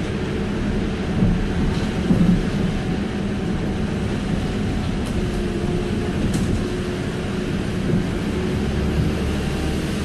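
Inside a moving city bus: a steady engine hum and tyre and road noise from the rain-wet street, with a couple of faint clicks about halfway through.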